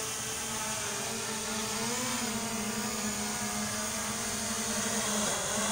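Quadcopter drone's propellers buzzing steadily as it comes back to auto-land, the pitch rising briefly about two seconds in.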